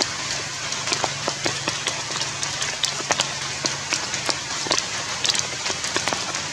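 Steady rain falling, with many irregular drops pattering and dripping sharply close by, over a low steady hum.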